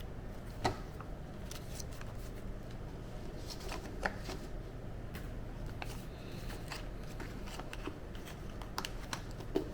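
Paper and packaging being handled: scattered light clicks and rustles of manuals and box contents, over a steady low room hum.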